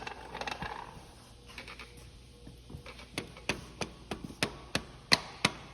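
Hand work on the timing gear of a rebuilt Chrysler flathead six, handled quietly at first. Then, about halfway through, a steady run of sharp metal clicks or taps starts, about three a second, growing louder.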